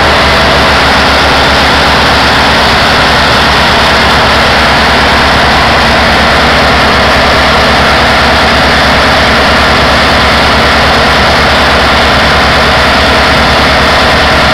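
Tanker's marine diesel engine running hard with its propeller churning the water at the stern: a loud, steady low pulsing rumble under a rushing wash. The loaded ship is driving to break away from the quay it is held against by suction.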